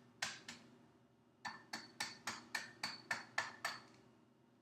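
An egg tapped repeatedly against the rim of a bowl to crack it. Two light taps, then after a pause a quick run of about nine taps, roughly four a second, each with a brief ring from the bowl.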